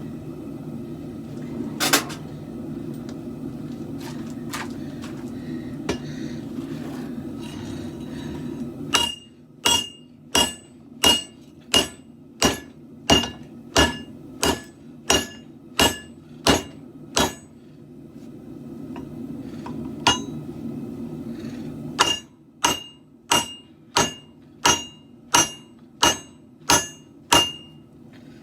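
Hand hammer striking a hot katana blade on an anvil: a single hard blow about two seconds in, then two long runs of evenly spaced blows, about one and a half a second, each with a bright metallic ring. Between the runs, a steady low roar of the forge.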